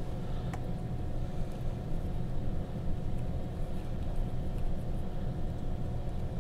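Steady low background hum and rumble of the workbench room, with a faint click about half a second in.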